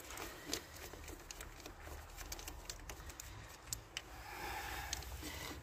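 Hand ratchet with a socket clicking and metal tools clinking as spark plugs are unscrewed from an engine's plug wells: light, irregular clicks.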